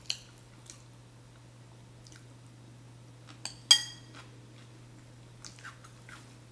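Metal fork clinking against a ceramic bowl: a short click right at the start, then a sharp, ringing clink about three and a half seconds in as the fork is set down in the bowl, followed by a few soft clicks. A steady low hum runs underneath.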